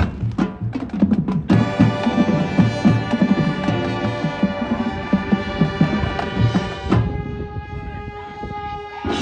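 Marching band playing: sharp percussion hits, then about a second and a half in the brass enters with a long held chord. Around seven seconds the chord thins to a quieter sustained note.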